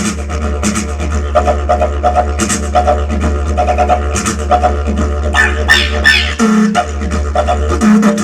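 Didgeridoo playing a continuous low drone with rhythmic pulses over it, brighter high-pitched calls about five to six seconds in, and the drone breaking off briefly twice near the end.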